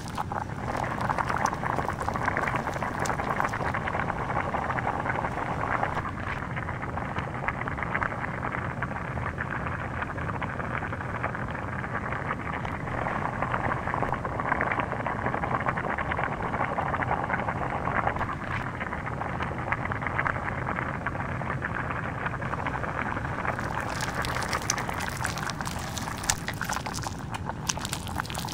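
Burning plastic whistle sizzling and crackling as it melts and bubbles, a dense continuous crackle that turns sharper and brighter in the last few seconds.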